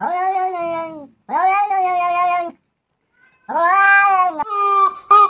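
A cat meowing: three long, drawn-out meows of about a second each, with short gaps between them. Near the end a different sound starts, a steady high tone broken into rapid pulses.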